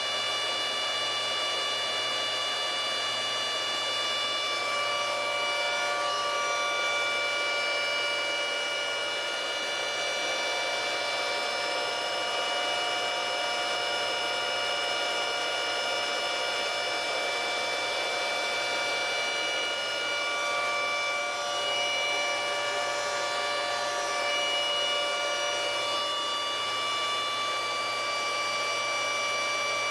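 Bitmain Antminer S9 SE Bitcoin miner's cooling fans running steadily: a loud, even rush of air with several high, steady whining tones over it.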